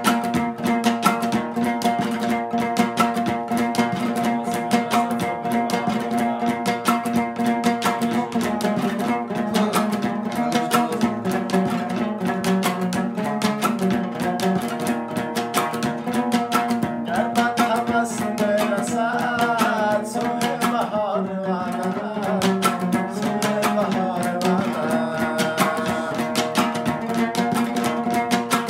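Afghan dambura, a two-stringed long-necked lute, strummed fast and steadily with its drone strings ringing underneath. A man's voice sings over it in the second half.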